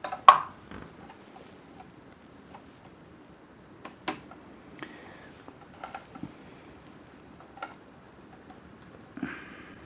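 Scattered light clicks and taps from a screwdriver working the small wire-terminal screws inside a 3D printer's electronics box. One sharper clack comes just after the start, and a brief rustle of cables comes near the end.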